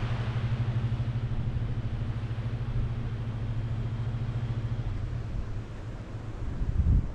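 1980 Chevy K20 pickup's engine running steadily in four-wheel low while pushing through deep snow, its low note easing off about five seconds in. A heavy thump near the end.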